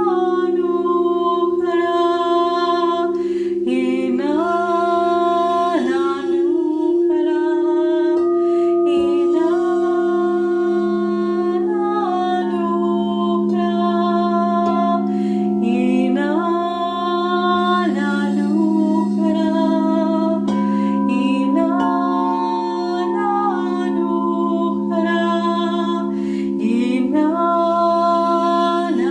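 A woman sings long, chant-like held notes, each one sliding up into its pitch, over the steady drone of several crystal singing bowls played with a mallet.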